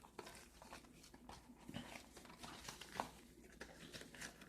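Faint rustling with a few small clicks, from gloves being pulled onto the hands.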